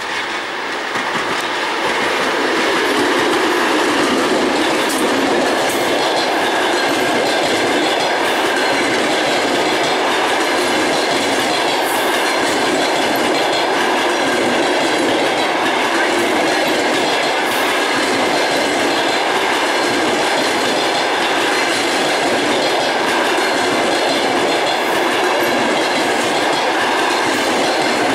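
Passenger train behind an EP2K electric locomotive running past at speed: a steady rolling noise of coach wheels on the rails, with occasional clicks over rail joints. It grows louder over the first two seconds, then holds steady.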